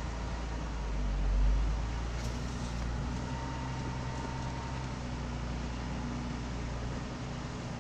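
Jeep Wrangler engine running steadily at low revs as the vehicle crawls along, a low even hum that swells briefly about a second and a half in.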